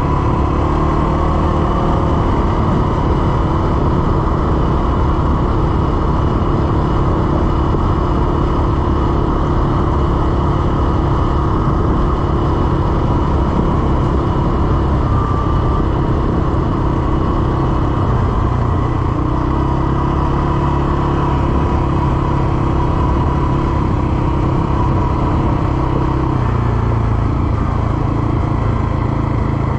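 CFMoto CForce 600 ATV's single-cylinder engine running steadily as the quad is ridden along at moderate speed, its pitch shifting a few times with the throttle.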